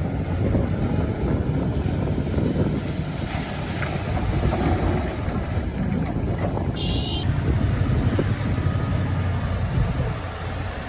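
Excavator running, a dense, steady engine noise concentrated at the low end, with a brief high tone about seven seconds in.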